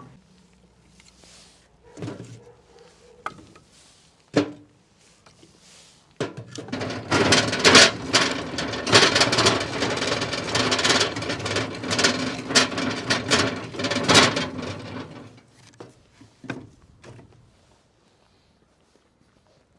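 Hands-on handling noise: a few scattered wooden knocks, then about nine seconds of dense scraping and rustling full of sharp clicks, which dies away to a few knocks near the end.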